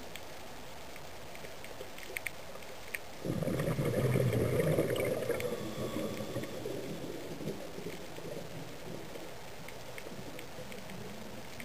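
Underwater ambience: a steady hiss with a few faint clicks, then about three seconds in a diver's exhaled bubbles rush out, loud at first and fading away over about four seconds.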